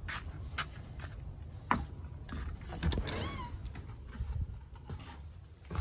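Footsteps and several clicks and knocks as a brass doorknob is turned and an exterior door is opened, with a short squeak about three seconds in, over a steady low rumble.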